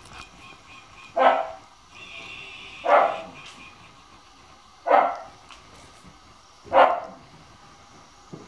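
A dog barking four times, about two seconds apart.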